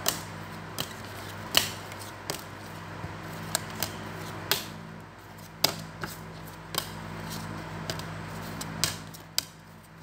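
Uno playing cards laid down one at a time onto a table: about a dozen sharp card slaps and flicks at an irregular pace, roughly one a second.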